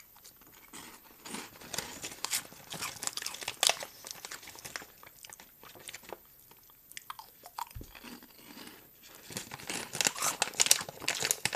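Tohato Caramel Corn, a crunchy puffed corn snack, being chewed in crisp, crackling bouts, a second or two in and again near the end. The foil snack bag rustles as hands rummage in it.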